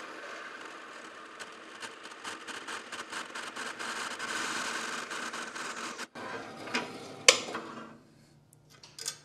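Metal-cutting bandsaw blade sawing through a carriage bolt clamped in a small machinist vise: a steady grinding hiss with a ringing tone over it. A sharp click comes near the end as the cut-off end of the bolt comes free, and the sound dies away soon after.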